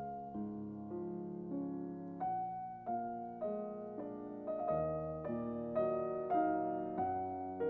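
Background music: a piano playing a slow, gentle melody of evenly spaced notes over sustained chords.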